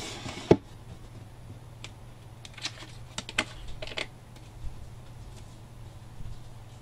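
Hands handling a paper-covered cardboard panel and a glue brush on a cutting mat. There is one sharp knock about half a second in, then a scattering of light clicks and taps.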